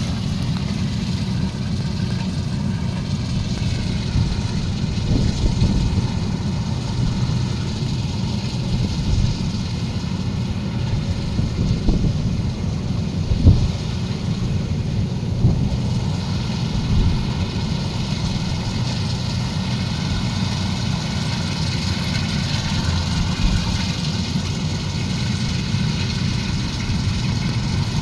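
Kubota combine harvester's diesel engine running steadily, with a faint higher whine over it. A few knocks sound, the sharpest about halfway through.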